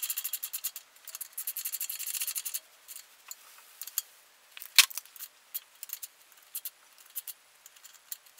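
Hand socket ratchet clicking as it tightens the bolts of an engine's rear main seal cover: a fast run of clicks for the first couple of seconds, then slower scattered clicks with one sharp louder click about halfway through.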